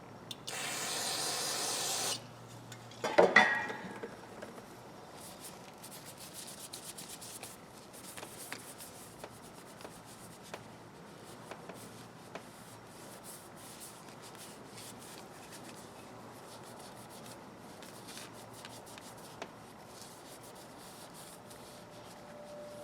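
A short aerosol spray hiss of carburetor cleaner, then a sharp metal clank with a brief ring, followed by quiet rubbing and light clicks as the steel crimpers are wiped clean of polishing compound.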